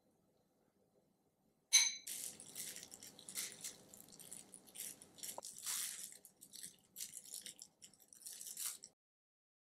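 Thin disposable plastic glove crinkling and rustling in irregular bursts as a gloved hand picks up cooked shrimp and lays them on a salad. It starts sharply a little under two seconds in and stops shortly before the end.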